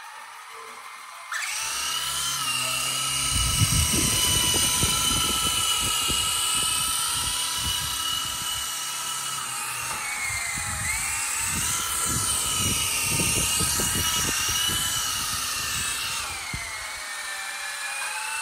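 Small RC toy helicopter's electric rotor motors starting with a sudden high whine about a second in and running through the flight, the pitch sagging and rising with the throttle. Irregular dull low thumps sound under the whine for most of the flight.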